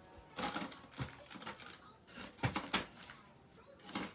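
Irregular clicks and knocks of hands handling the plastic housing and screws of a window air conditioner, a few sharp taps over several seconds.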